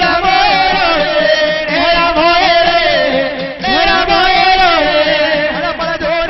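Gujarati devotional jagar singing: a voice chanting a sliding melodic line over a steady beat, with a short break a little past halfway.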